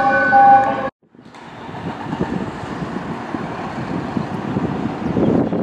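A fire engine's horn sounds as a steady chord of tones and cuts off abruptly about a second in. Then comes a noisy low rumble of wind on the microphone, with vehicle noise growing louder toward the end.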